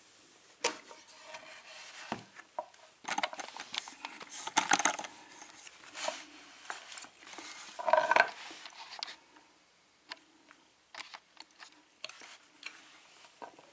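Brass Sargent 5-pin lock cylinder being handled: irregular metallic clicks, taps and clinks as it is turned in the hands and set down on a rubber work mat. The loudest clatter comes about eight seconds in.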